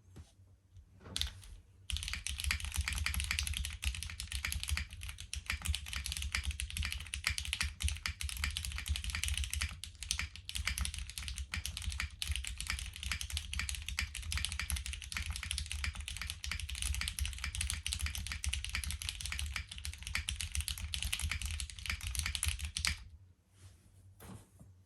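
Continuous fast typing on a gasket-mounted Ginkgo65 R1 mechanical keyboard with lubed RNDKBD Butter Brown switches on a polycarbonate plate and GMK keycaps. A single keystroke comes about a second in, then steady rapid typing starts and runs for about twenty seconds before stopping near the end.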